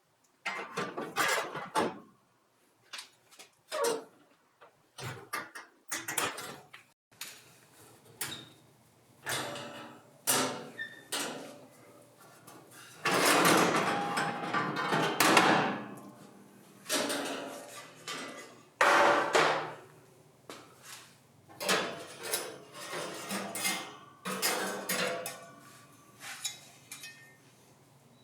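Irregular knocks and clatters of hard parts being handled and tapped, with a denser continuous scraping noise lasting about three seconds midway.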